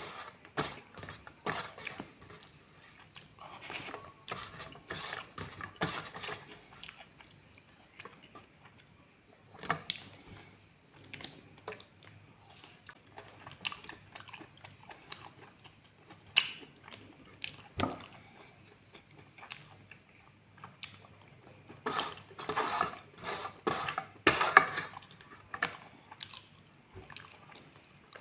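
Close-up mouth noises of a man chewing pork and rice, with irregular clicks, and his fingers gathering rice on a steel plate. The sounds grow busier and louder about three-quarters of the way through.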